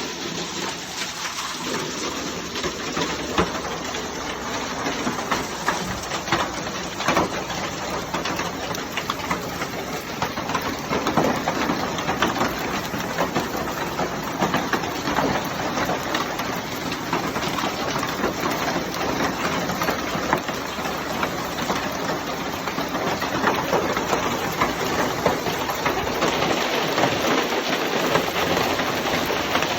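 Hailstorm: a dense, steady clatter of hailstones striking, with countless sharp individual hits over a constant noise of falling ice and rain.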